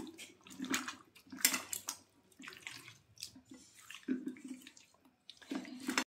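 Wet squishing and squelching of a bare hand kneading raw chicken pieces and potato chunks into a thick masala paste in a steel bowl, in uneven bursts.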